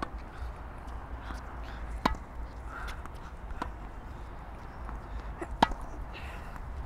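Tennis balls struck by racquets during a rally drill: two sharp pops about three and a half seconds apart, with lighter knocks in between.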